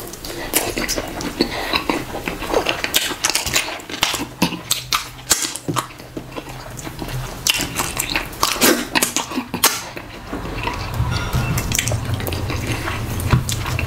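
Close-up eating sounds: wet chewing, lip smacks and sucking while meat is eaten by hand, with sticky squelches as fingers pull fufu from the ball and dip it in slimy ogbono soup.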